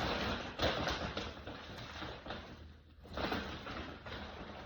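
Small blind-bag packet being opened by hand: crinkling, rustling and tearing of the packaging, with a short pause midway.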